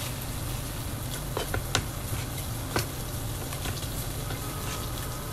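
Knife chopping boiled pork on a plastic cutting board: irregular sharp knocks of the blade on the board over a steady background hiss.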